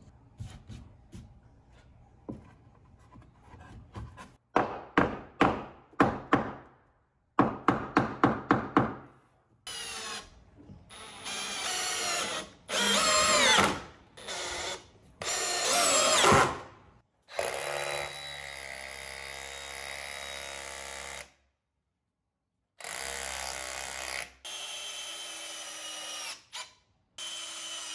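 Cordless drill driving screws through a wooden 2x6 board into wall studs and a concrete block wall, in short bursts whose pitch rises as the motor spins up. A run of quick sharp strokes comes in the first third, and there is a longer steady drilling run about two thirds of the way through.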